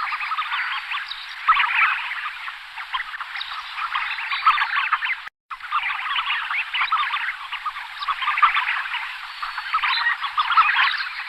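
A flock of tufted ducks giving many harsh, rapid calls that overlap into a dense chorus, swelling and fading every two to three seconds. The sound cuts out completely for a moment about halfway through.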